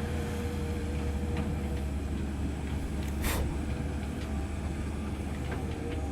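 Komatsu PC130F excavator's diesel engine running steadily, with a short hiss about three seconds in.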